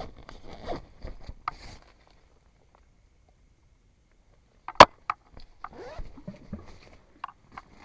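A single sharp, loud knock about five seconds in, followed by a few fainter clicks and low rustling.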